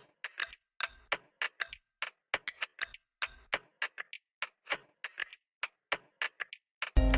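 Sparse, dry clicking percussion in a music mix: short ticks about three or four a second at uneven spacing, with silence between them. Full music comes in at the very end.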